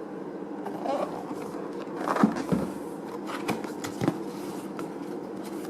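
Product packaging being handled: short rustles and several light knocks and clicks, the sharpest about two seconds in, over a steady low hum.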